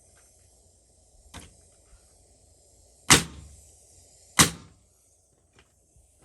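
Nails being driven into the wooden frame: a faint knock about a second in, then two loud sharp strikes just over a second apart.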